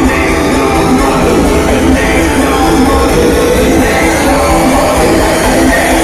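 Loud party music with a steady beat playing over a sound system, with a crowd singing and shouting along.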